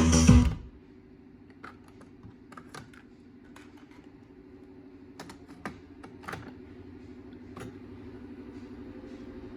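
Music cuts off about half a second in, followed by scattered light switch clicks, about eight in all, over a low steady hum that grows slightly louder toward the end.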